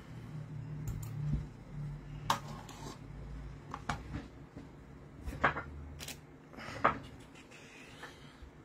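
Scattered taps, knocks and rustles of paper and craft materials being handled on a tabletop, about seven sharp ones, with a low hum in the first few seconds.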